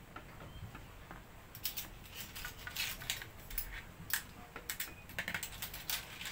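A spoon scraping and clinking against a bowl and a plastic container as rice is scooped out, heard as an irregular run of sharp clicks and scrapes that starts about a second and a half in.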